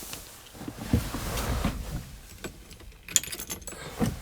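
Scattered knocks and handling sounds, with a short jingle of car keys about three seconds in, just before the engine is started.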